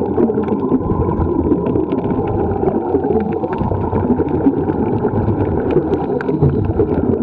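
Muffled underwater noise picked up by a camera in a waterproof housing: a dense low rumble of moving water with many small scattered clicks.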